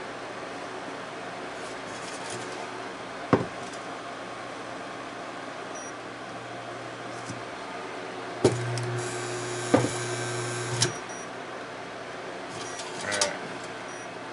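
Portable induction cooktop tried with an aluminium CanCooker Jr pot: a knock of the pot about three seconds in, then a steady electrical hum for about two seconds, with sharp clicks as it starts, midway and as it stops. The cooktop will not heat the aluminium pot. A smaller clatter near the end.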